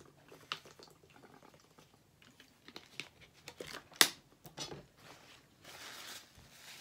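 Faint close-up rustling and small clicks, with one sharper click about four seconds in.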